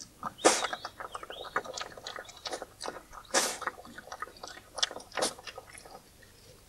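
A European badger snuffling and digging in loose earth. Two sharp sniffs, one about half a second in and one around the middle, stand over a run of quick crackling scrapes and clicks from soil being worked.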